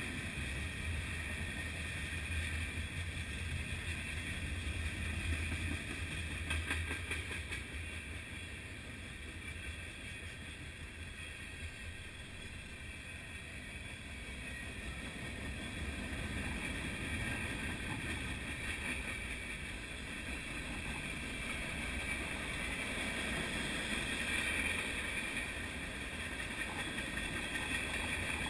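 Freight train cars rolling past at trackside: continuous steel wheel-on-rail rolling noise, a low rumble with a steady higher ring, as covered hoppers, boxcars and empty center-beam flatcars go by.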